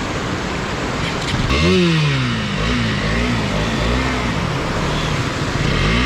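Motorcycle engine revving up and down repeatedly as it is ridden through a swollen stream, starting about a second and a half in, over a steady rush of water.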